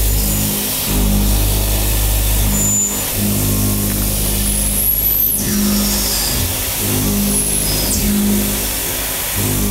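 CNC machining center's end mill taking deep full-slot cuts through a metal block under heavy load: a loud, steady, low-pitched machine hum whose tone shifts several times.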